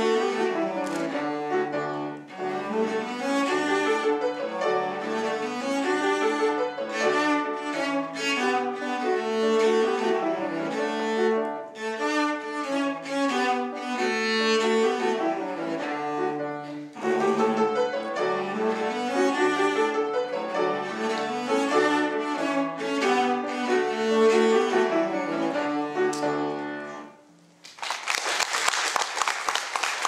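Cello bowed in a lively passage of quick, short notes. The piece stops about three seconds before the end and applause breaks out.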